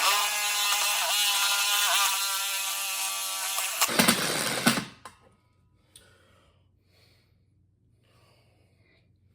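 Electric drill running at speed as its bit bores into a jammed vending machine lock, a steady whine that dips in pitch twice under load. About four seconds in it turns harsher as the bit grabs, then stops, leaving only faint handling sounds.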